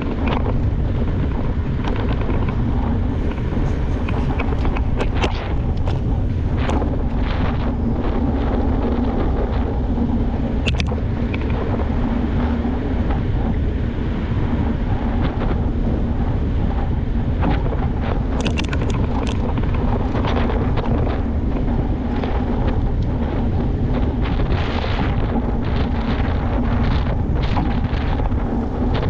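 Wind buffeting an action camera's microphone during a mountain bike ride, a steady roar with a low hum underneath. Scattered short clicks and rattles come through it.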